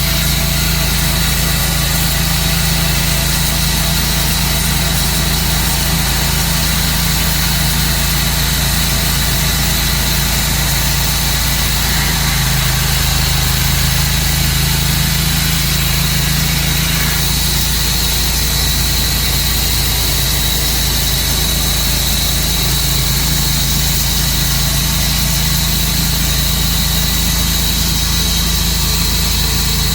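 Engine of a Tru-Cut bandsaw sawmill running steadily at an even level, with a slight shift in its low hum about twelve seconds in.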